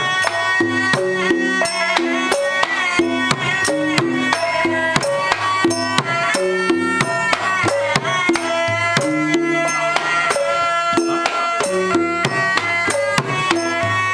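Wayang kulit ensemble music: hand-played barrel drums and a stick-beaten drum keep up a fast, even pattern of strokes under a wavering, sliding melody line.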